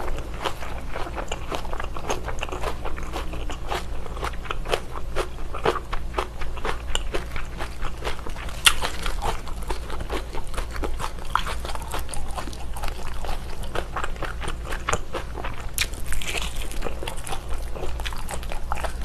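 Close-miked biting and chewing of a chunk of baked whole bacon: a dense run of crisp, crackly crunches, with one sharper crunch a little before halfway.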